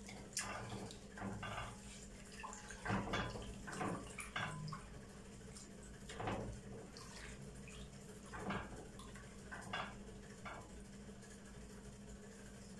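Irregular scrapes and light clinks of a spatula and metal spoon stirring boiled wheat in a pan, scattered through the whole stretch with the loudest about three seconds in, over a low steady hum.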